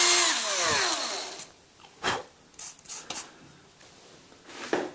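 Electric drill fitted with a 5/32-inch bit, just through a hole in the layout's roadbed, running and then spinning down as the trigger is let go, its whine sliding down in pitch within the first second. A few light knocks and clicks follow.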